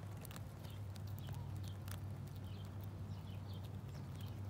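Squirrel gnawing food held in its paws, making small scattered crunching clicks. A steady low hum runs underneath, with faint bird chirps.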